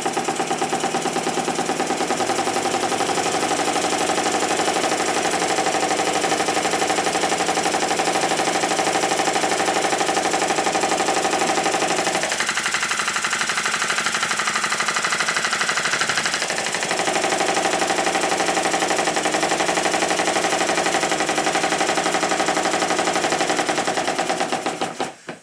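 Stuart triple-expansion model steam engine running fast on compressed air: a rapid, even stream of exhaust beats and mechanical clatter. For about four seconds midway, from roughly 12 seconds in, the tone of the beats changes and then returns.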